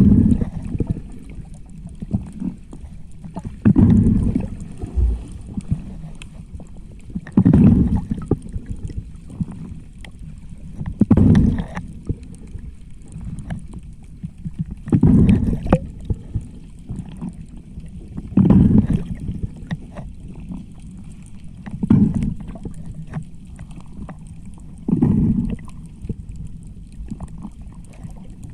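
A diver's exhaled air bubbling and rumbling underwater in regular bursts, about one every three and a half seconds, in time with the breathing, over a steady underwater hiss.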